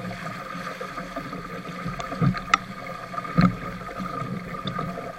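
Wind and rushing water around a 420 sailing dinghy as it sails heeled through chop, heard through the deck-mounted camera. Two heavy thumps, about two and three and a half seconds in, as the hull slaps into waves.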